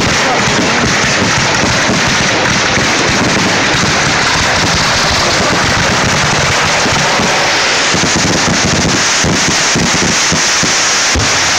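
1.3G display fireworks finale: a rapid, unbroken barrage of shells launching and bursting, the bangs overlapping into one loud, continuous din, with a few separate bangs standing out near the end.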